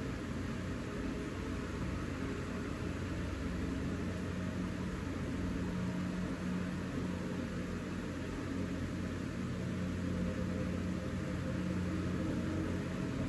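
Steady low hum with an even hiss: background noise of a running machine.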